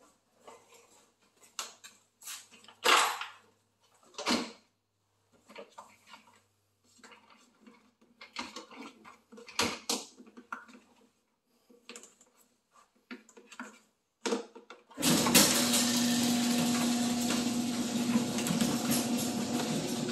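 Scattered clicks and knocks of handling, then about fifteen seconds in a vacuum cleaner switches on and runs steadily with a constant hum.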